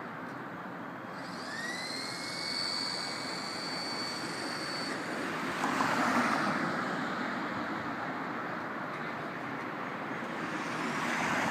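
Steady city street traffic noise. About a second in, a high whine rises, holds for a few seconds and then cuts off. The traffic swells louder for a moment around the middle as a vehicle passes.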